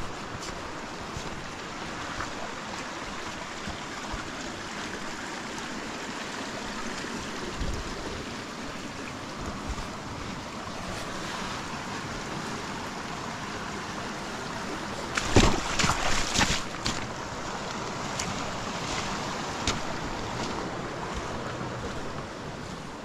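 Steady rush of a small mountain creek running over rocks, with a brief cluster of loud knocks and scuffs about fifteen seconds in.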